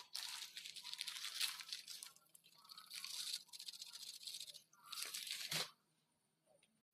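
A plastic packet crinkling and rustling as it is handled and tipped to pour its contents into a pot of heating water, in three spells with short breaks, stopping a little over halfway through the last second.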